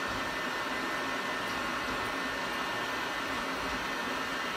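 Vertical machining center running a circular pocket program in the air, with no material being cut: the spindle turns at 4000 rpm while the axes feed, a steady whirring hiss.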